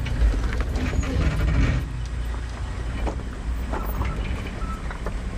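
Off-road 4x4's engine running at low revs as the vehicle crawls over rocks, with short knocks from the body and suspension over the bumps.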